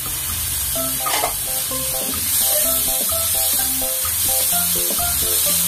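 Chopped tomatoes and onions sizzling in hot oil in a wok as they are sautéed and stirred with a wooden spatula. Light background music with short plucked notes starts about a second in.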